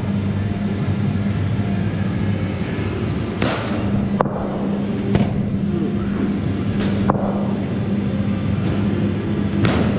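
Cricket balls struck by bats and hitting the nets and matting: about five sharp knocks a second or two apart, echoing in a large hall over a steady low hum.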